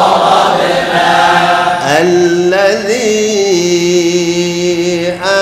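A man chanting Quranic recitation (tilawat) into a microphone, drawing out one long melodic held note with a brief ornamented rise and fall about three seconds in.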